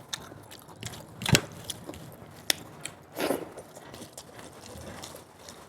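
Close-miked chewing and mouth sounds of a person eating, with wet smacks and small clicks. There is a sharp knock about a second in and a short louder smack a little after the middle.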